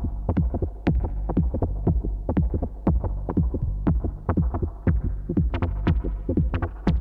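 Electronic dance music from a live set: a steady deep bass drone under a fast run of short percussive hits, each dropping in pitch.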